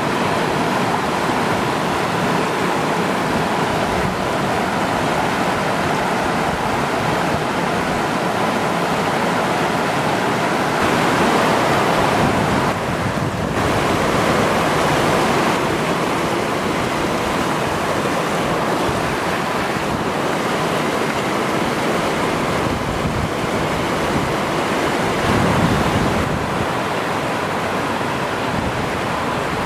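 Fast-flowing stream rushing and splashing over rocks, a steady roar of water.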